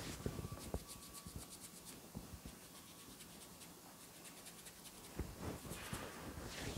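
Hands rubbing and scratching over skin and hair during a massage, with scattered small clicks and runs of fine, quick crackles.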